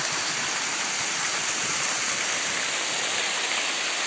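Rushing water of a creek below a waterfall: a steady, even hiss with no break.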